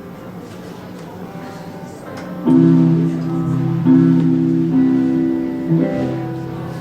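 Guitar chords played live: quieter playing at first, then loud chords struck about two and a half seconds in and again about a second and a half later, each left to ring.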